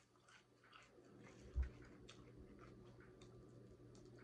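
Faint eating sounds of fried chicken being chewed and pulled apart by hand: small scattered crackles and mouth clicks from the crunchy crust. A soft steady hum comes in about a second in, with a single low thump shortly after.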